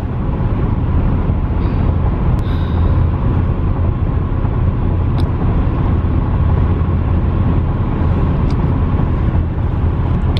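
Steady low road and engine rumble inside a moving car's cabin, even throughout, with a faint steady hum above it.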